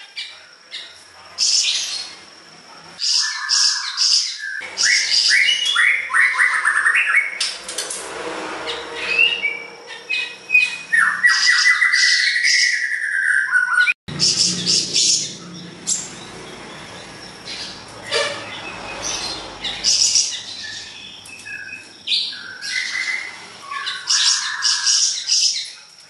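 A caged siri-siri besar songbird singing in full voice ('gacor'): a long, varied run of chirps, rapid rattling trills and whistled glides, with short pauses between phrases.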